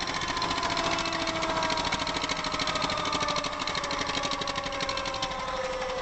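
Hadley Puffy air horn compressor running steadily as it pumps the air tank up past 100 psi. It makes a rapid, even chatter with a hum that sinks slowly in pitch.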